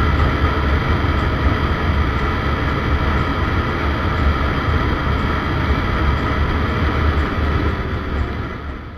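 Yamaha Sight 115 Fi motorcycle's small single-cylinder engine running steadily at cruising speed, mixed with heavy wind noise on the microphone, fading out near the end.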